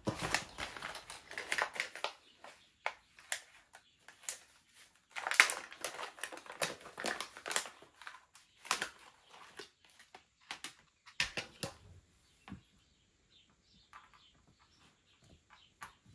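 Packaging from a diamond painting kit crinkling and rustling as it is handled, in several bursts with short pauses, thinning to a few faint ticks over the last few seconds.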